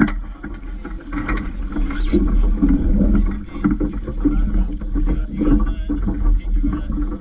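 A Vaucluse Junior sailing dinghy under way: wind buffeting the camera microphone as a low rumble, with water rushing and splashing along the hull. A sharp knock right at the start.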